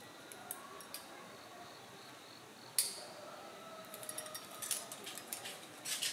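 Metal climbing gear clinking: carabiners and quickdraws knocking together, with one sharp click about three seconds in and a run of clinks through the last two seconds.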